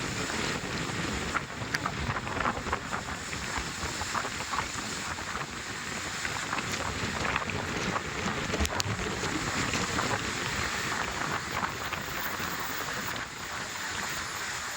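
Wind buffeting the microphone, a steady rushing noise with scattered short knocks and rattles.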